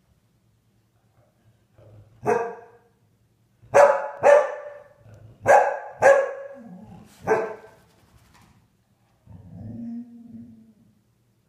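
Dog barking: six sharp, loud barks over about five seconds, then a lower, drawn-out grumble near the end.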